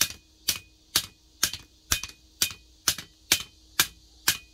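Hand hammer forging a red-hot knife blade of tractor plow steel on a steel anvil block: steady, even blows a little over two a second, about ten in all, each with a short metallic ring.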